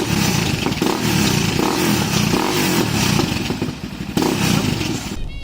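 Yamaha XT660R's single-cylinder engine running through Delkevic aftermarket exhausts with the baffles taken out. The engine sound breaks off about five seconds in.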